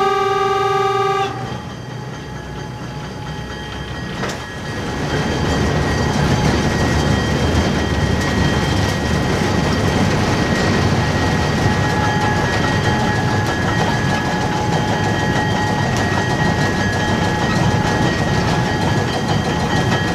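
Horn of steeple cab electric locomotive No. 298 holding one steady note, cutting off about a second in. Then the locomotive runs along the track, a steady rumble of wheels on rail with a steady whine over it, growing louder about four seconds in.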